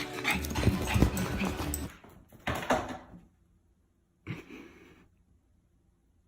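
A dog whimpering, with two shorter calls about two and a half and four and a half seconds in.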